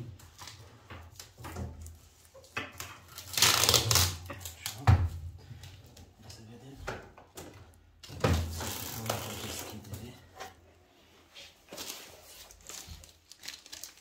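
Packing tape and protective wrapping being pulled and crinkled while a new microwave oven is unwrapped, in two louder rustling spells, with a single thump about five seconds in.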